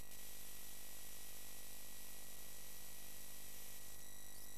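Steady electrical hiss and buzz with a few constant high whining tones over a low hum; the hiss brightens suddenly at the very start.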